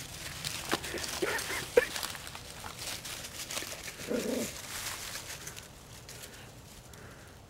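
Dachshund barking at a whitetail deer: a few short, sharp yelps in the first two seconds and one fuller bark about four seconds in. Dry leaf litter rustles and crunches underfoot throughout.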